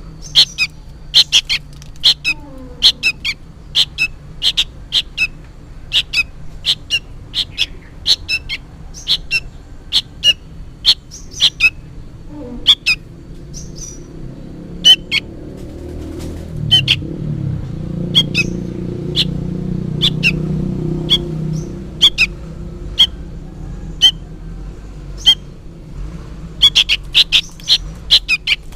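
Juvenile sooty-headed bulbul giving short, sharp begging calls over and over, often two or three in quick succession; the uploader takes them for the young bird calling its parent, though he says he can't be sure. The calls thin out in the middle, where a low rumble swells and fades underneath, then come fast again near the end.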